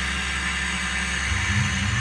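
Tormach 440 benchtop CNC mill running, its spindle whirring steadily while the end mill cuts a wooden pistol slide.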